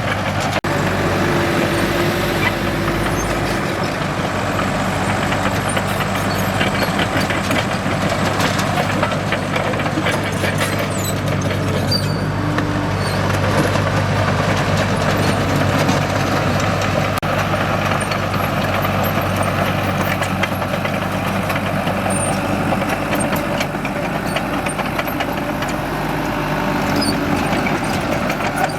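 Diesel engine of a Komatsu D37EX crawler bulldozer running steadily, with scattered light clicks and clanks over it.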